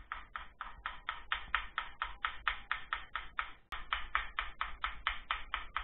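Electric roller shutter running on its tubular motor: a steady low motor hum under an even, rhythmic clatter of about five clicks a second.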